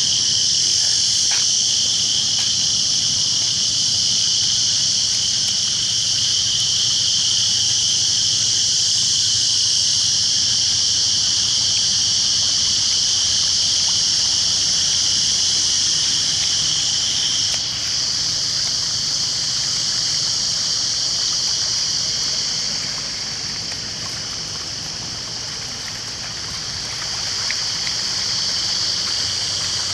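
Steady loud rush of floodwater from heavy rain flowing across a washed-out road, a continuous hiss that eases off for a few seconds past the middle before building again.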